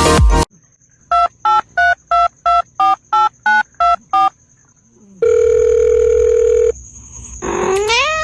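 Telephone keypad dialing: about ten short two-note beeps, roughly three a second. A single steady phone tone of about a second and a half follows. Near the end a short pitched call rises.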